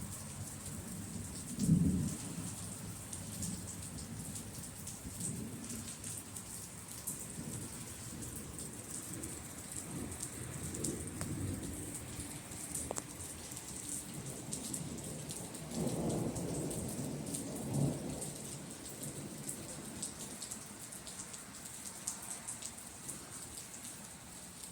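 Steady rain falling with thunder rumbling. The loudest clap comes about two seconds in, and a longer double rumble follows around sixteen to eighteen seconds in.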